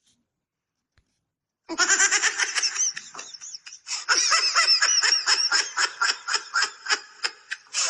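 A novelty phone ringtone: a high-pitched, voice-like sound starting about two seconds in, chopped into quick pulses of about five a second.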